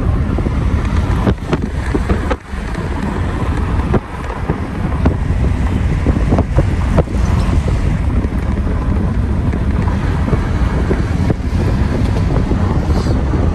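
Wind buffeting the phone's microphone over the low, steady rumble of a car on the move. There are a few brief knocks and dropouts in the first four seconds.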